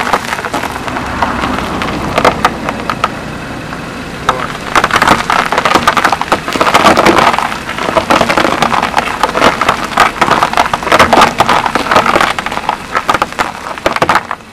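Brittle things crunching and crackling as a car's tyre crushes them: a dense run of sharp cracks that swells and eases several times.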